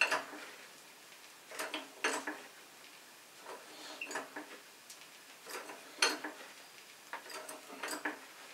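Hand pump of a 20-tonne hydraulic shop press being worked on its slow stage: sharp metallic clicks and clacks, a pair about every two seconds. The press is under about 6 tonnes of load as an 8 × 45 mm steel flat bar bends in the V-die.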